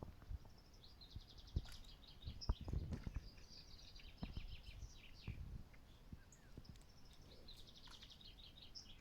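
A small songbird singing fast trills, twice, with soft low knocks and thumps in between during the first half.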